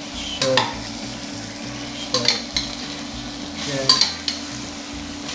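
A metal spoon scooping cherries from a stainless bowl and tipping them into a frying pan of melting sugar: three spoonfuls, each marked by a sharp metal clink, over a soft steady sizzle from the pan.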